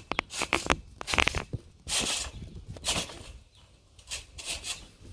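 A few light clicks and rustles close to the microphone as a phone is set down and propped in the grass, followed by short scratchy swishes about once a second.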